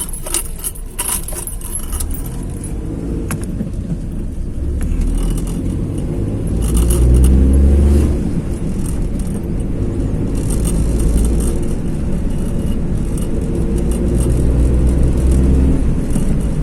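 Car driving along a road: a steady low rumble of the engine and tyres, swelling twice, with light rattling near the start.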